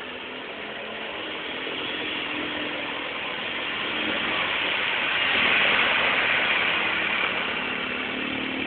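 Polaris Sportsman 400 ATV engine running as it drives through a shallow creek, with water splashing and spraying off the tyres. The splashing and engine grow louder to a peak about five to six seconds in, then ease off.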